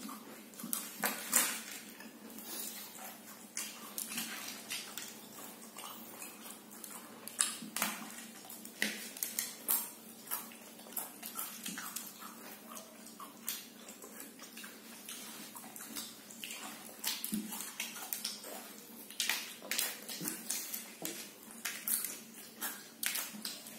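Pringles potato crisps crunched and chewed by two people eating face-down from paper plates without hands: irregular crackles and clicks throughout.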